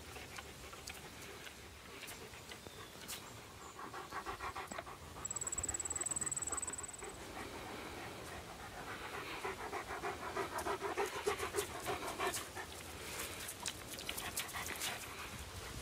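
Dog panting in quick, even breaths, in two spells: a few seconds in and again through the middle. A brief high-pitched steady tone sounds about five seconds in, the loudest moment, and sharp crackles and clicks come near the end.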